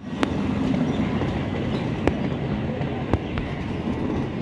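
Passenger coaches of the Ernakulam–Patna Superfast Express running through the station at speed: a loud, steady rumble of steel wheels on rail, broken by a few sharp clacks as wheels cross rail joints.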